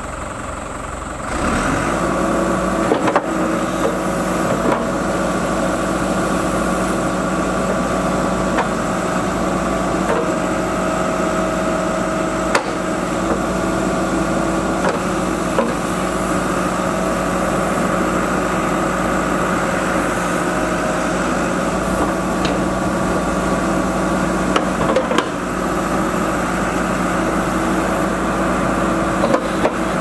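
Ford New Holland 575E backhoe loader's diesel engine throttling up about a second in, then running steadily at working speed while the backhoe digs. Scattered knocks and clunks come from the bucket and arm.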